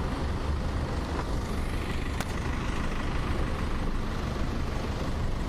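Tow truck's engine running close by with a steady low rumble, over street traffic noise, with one sharp click about two seconds in.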